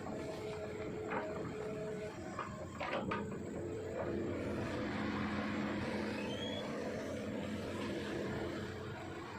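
Hitachi ZX200-5G excavator's diesel engine running under working load, with a few sharp knocks in the first three seconds; the engine note grows louder and steadier from about four seconds in.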